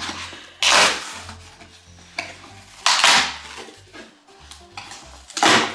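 Cardboard shipping box being torn open by hand: three short, loud ripping noises about two and a half seconds apart, over background music with a bass line.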